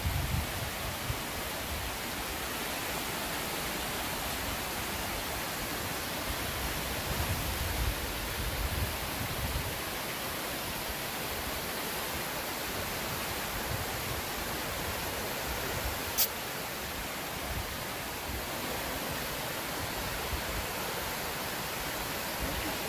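Fast-flowing river rushing over rocks in whitewater rapids, a steady rushing noise. Low gusty rumbles come at the start and again about seven to nine seconds in, and a single sharp click sounds about sixteen seconds in.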